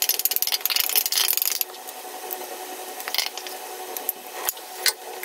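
Batter balls deep-frying in hot oil in an enamel pan, sizzling and crackling. The crackle is densest for the first second and a half, then settles to a steadier sizzle with scattered pops. A few sharp clicks come near the end as a metal ice-cream scoop adds more batter.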